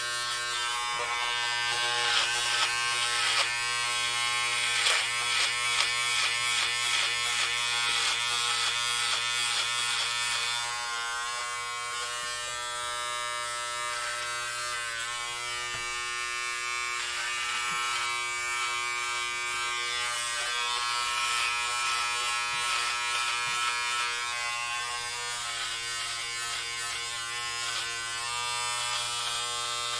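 Electric hair clippers buzzing steadily while cutting hair, with rapid crackling from the blades through about the first ten seconds, then a smoother, steadier buzz.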